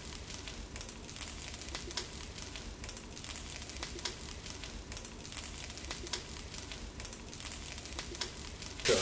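Faint crackling sizzle of jeera rice frying in a stainless steel pan, with scattered small pops. Right at the end a wooden spatula starts stirring the rice and the frying sound turns suddenly louder.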